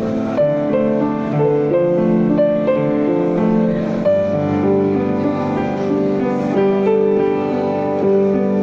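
Piano music: a slow melody played over sustained chords, notes changing every second or so.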